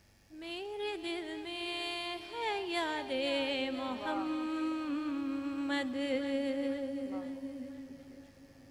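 A woman's solo voice singing the wordless, unaccompanied opening of a naat, an Urdu devotional song. The pitch winds up and down for a few seconds, then settles on one long held note that fades out near the end.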